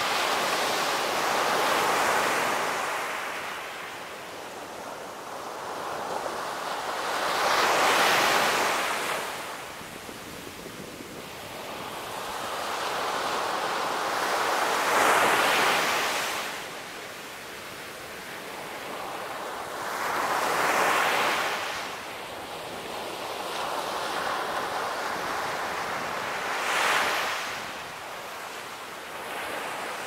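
Ocean surf breaking and washing up a sandy beach, the rush of each wave swelling and fading five times, about every six seconds.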